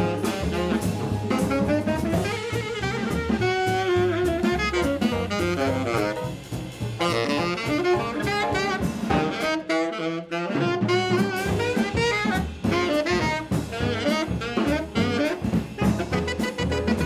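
Jazz band playing, with a tenor saxophone carrying the lead line over drum kit and upright bass. The bass and drums drop out briefly about ten seconds in.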